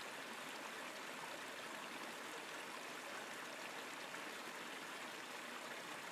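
Faint, steady hiss of ocean surf washing on the beach, an even wash without distinct wave crashes.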